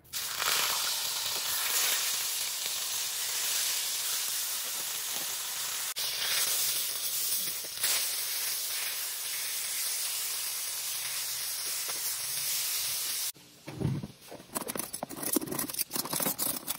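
Fish steaks frying in hot oil in a wok, a steady sizzling hiss. About thirteen seconds in it gives way to irregular clinks of metal spoons and forks handled in a cutlery drawer tray.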